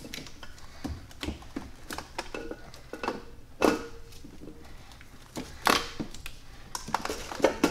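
Irregular clinks, knocks and scrapes of metal on metal as a C5 Corvette's aluminum cylinder head is shifted and worked down onto the engine block, with louder knocks about three and a half, five and a half and seven and a half seconds in.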